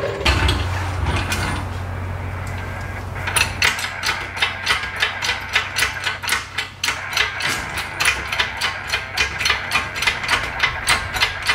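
A low steady hum for about three seconds, then a hand ratchet clicking in quick even strokes, about two to three clicks a second, as bolts are worked loose under the truck.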